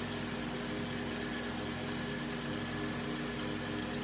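Steady hum of a running motor or appliance, an even drone with a low pitch that holds unchanged.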